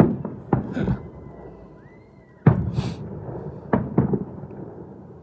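Fireworks going off: a string of sharp bangs, each trailing off in a rumble. Three come in the first second, and the loudest about halfway through, just after a faint rising whistle. Two more follow close together near the end.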